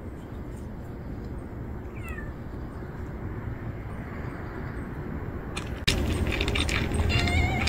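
Cat meowing over a steady low background rumble: a faint short falling meow about two seconds in, and a louder wavering meow near the end.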